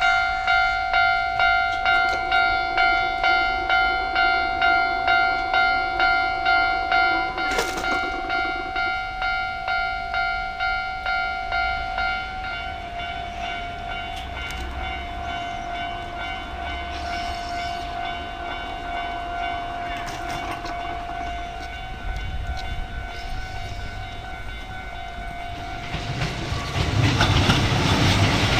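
Japanese level-crossing alarm ringing with a repeated bell-like tone, about one and a half strokes a second, the strokes blurring into a steadier ring after about twelve seconds. Near the end a Kintetsu train arrives and its wheels clatter over the rails, louder than the alarm.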